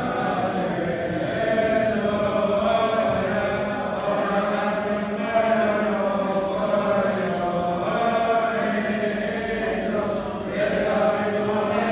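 A group of voices singing Syriac Orthodox liturgical chant, in long held notes that move slowly in pitch.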